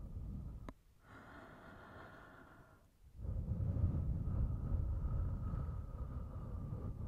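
ASMR breathing and blowing close to the microphone: a breath blown onto the mic, a small click just under a second in, a softer in-breath, then a long slow blow from about three seconds in.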